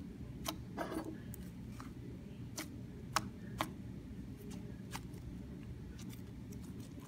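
Sticky slime being kneaded and stretched by hand, giving irregular small clicks and pops as it pulls apart and presses together, over a faint low hum.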